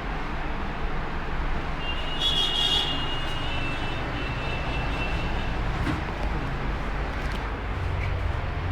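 Steady vehicle traffic noise with a low rumble. About two seconds in, a high-pitched squeal lasts for about three seconds.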